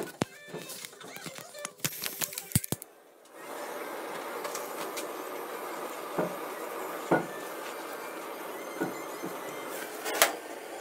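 Scattered clicks and knocks, then an electric heat gun blowing steadily from about three seconds in as it is run along the edges of the wooden piece to scorch them, with a few single knocks over it.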